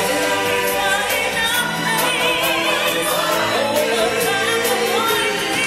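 Stage show music with a choir singing over a band and percussion, a singer's wavering held notes standing out around the middle.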